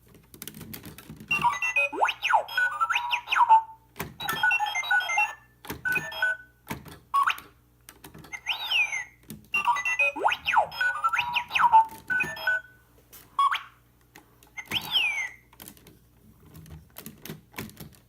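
Puzz3D R2-D2 sound box playing R2-D2 droid beeps, warbles and rising and falling whistles through its small speaker, the same sequence of chirps playing twice. Light clicks and taps of plastic parts being handled run alongside.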